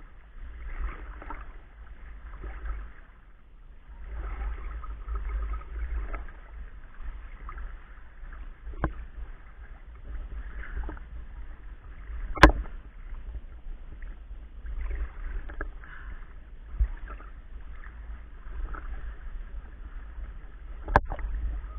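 River water sloshing and splashing as a person moves through it. A few sharp knocks stand out, the loudest about halfway through.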